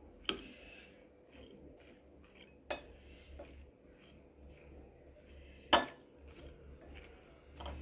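A spoon tossing chopped fruit and vegetable salad in a glass bowl: soft rustling of the pieces, with three sharp knocks of the spoon against the bowl, the loudest about three-quarters of the way through.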